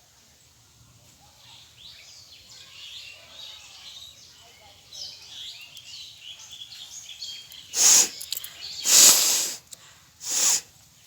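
Birds chirping, then a person blowing their nose hard three times in quick, noisy blasts, the middle one the longest.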